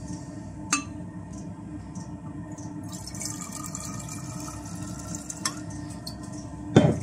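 Liquid camp-stove fuel being poured into a metal fuel bottle, the pour's pitch rising as the bottle fills. A few light clicks, and a sharp knock near the end.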